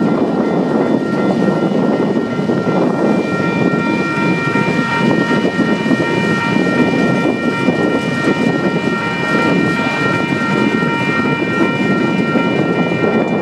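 A freight train of empty autorack cars rolling past at close range: a steady, loud rumble of steel wheels on rail, with several steady high-pitched tones held over it.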